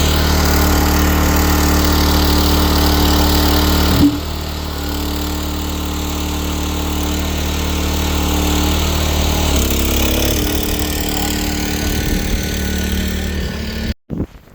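Small engine of a mini skid steer running steadily. There is a sharp clank about four seconds in, after which the engine runs a little quieter, and its note shifts again near ten seconds. The sound cuts off abruptly near the end.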